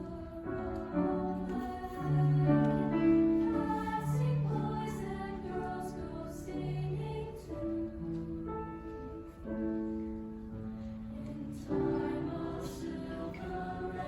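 High school choir singing in several parts, holding long chords with soft consonants, and a new phrase entering strongly about twelve seconds in.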